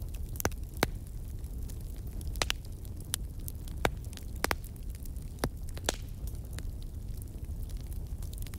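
Fire crackling in a fireplace: irregular sharp pops and snaps, two of them louder, over a low steady rumble of the flames.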